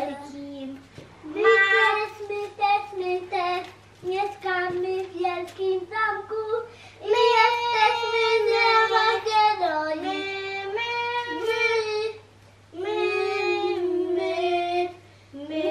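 A child singing a tune with no accompaniment: a run of held notes that step up and down, broken by short pauses, with a longer break near the end.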